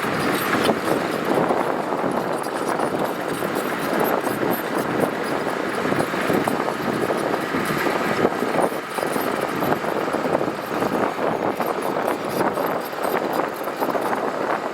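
Heavy diesel earthmoving machinery working gravel, running steadily without a break.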